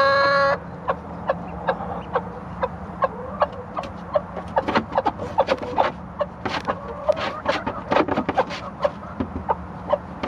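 A hen's long, drawn-out call that stops about half a second in, then a steady run of short calls, several a second, from a hen and an Indian Runner duckling.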